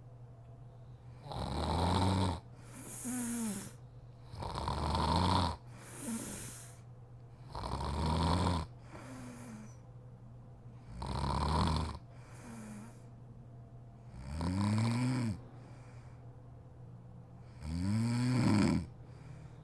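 A sleeping woman snoring: six snores, about one every three seconds, each followed by a softer out-breath, over a faint steady hum.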